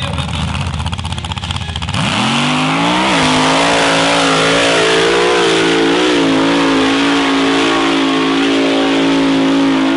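A modified off-road SUV's engine rumbling roughly at low revs, then about two seconds in the revs climb quickly as it launches at full throttle up a sand dune, holding a high, steady pitch with a slight waver.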